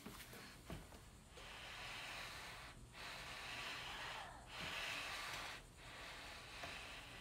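Plywood router sled sliding back and forth by hand along its wooden rails, a faint hissing scrape in four passes of about a second each with short pauses between.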